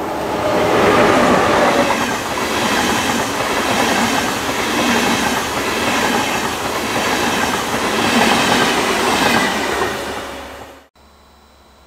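A passing train, wheels on rails: a loud, steady rush of rail noise that swells over the first second, holds, and cuts off suddenly about eleven seconds in.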